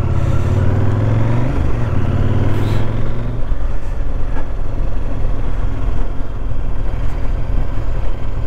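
KTM 790 Adventure R's parallel-twin engine running under way on a slippery dirt road. The revs rise over the first second or two, then about three and a half seconds in the even engine note gives way to a rougher low rumble.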